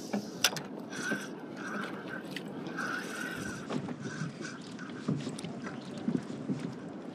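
Small waves slapping and sloshing against a plastic sit-on-top kayak hull, with a few sharp clicks near the start.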